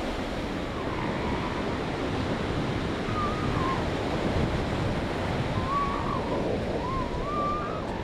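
Steady ocean surf washing on the beach, with wind buffeting the microphone. Faint short wavering calls come through four times over it.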